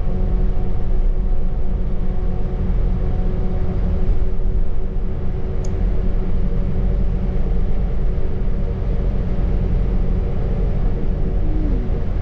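Scania K280UB bus's five-cylinder diesel and drivetrain running steadily at a constant speed, heard from on board: a deep rumble under a steady hum. There is a short high tick about halfway through.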